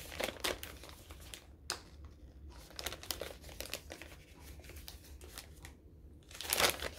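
Gift wrapping being crinkled and torn by hand as a small wrapped package is opened. It comes as irregular rustles and rips, with a louder burst of tearing near the end.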